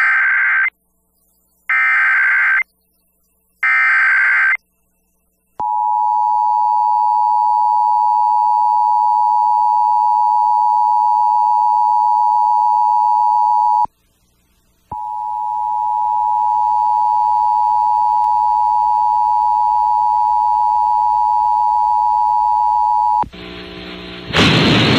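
Emergency Alert System broadcast over FM radio: three short bursts of screeching SAME header data about a second apart, then the steady two-tone EAS attention signal. The tone holds for about eight seconds, cuts out for a second, then sounds again for about eight seconds. Near the end a loud hiss of noise comes in.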